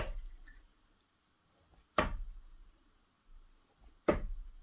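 Three sharp knocks, evenly spaced about two seconds apart, each dying away quickly in a small room.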